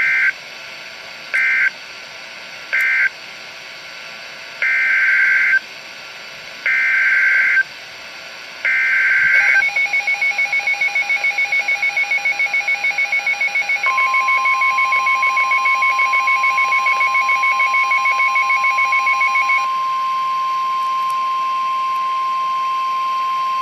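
Emergency Alert System tones between two flood warnings. First come three short screeching data bursts, the end-of-message code of the first warning, and then three longer screeching bursts, the header of the second warning. A fast-pulsing two-tone attention signal follows, and about fourteen seconds in a steady high alert tone joins it; the pulsing stops near twenty seconds and the steady tone carries on alone.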